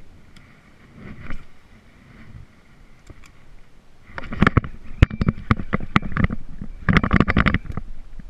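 A hand handling the camera close to its microphone. From about four seconds in comes a dense, loud run of knocks, rubs and rumble, after a quieter start.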